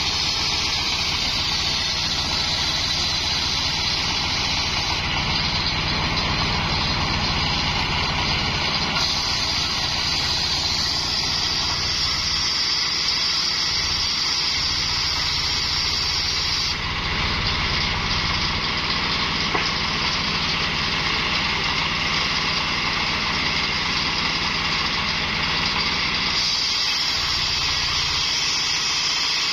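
Homemade engine-driven circular sawmill running steadily while its blade rips a coconut-palm log lengthwise, a high cutting hiss over the engine's drone. The hiss shifts in pitch and strength a few times as the log is pushed through.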